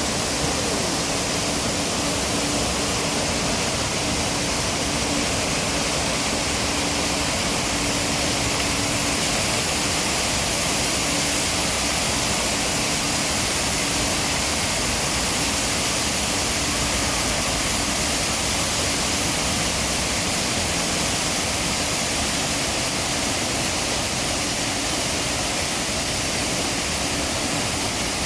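Steady rushing of water pouring down a man-made waterfall, even and unbroken, with a faint steady hum under it that fades out about two-thirds of the way through.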